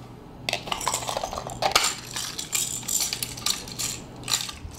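Hard clear plastic lure package being handled and pried open, giving irregular clicks and clatter starting about half a second in.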